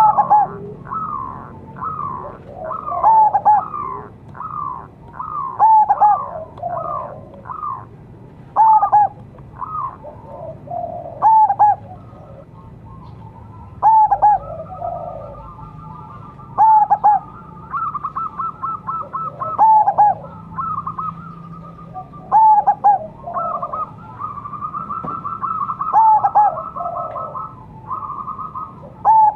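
Zebra dove (perkutut) singing its staccato cooing song: loud phrases of sharp notes recurring every two to three seconds, with quicker runs of rapidly repeated notes in between.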